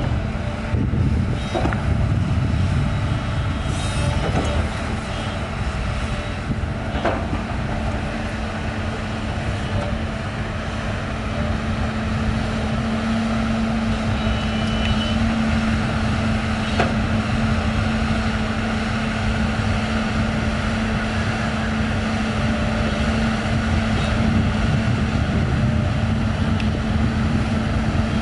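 Liugong 922D hydraulic excavator's diesel engine running steadily as the machine works, with a few short knocks.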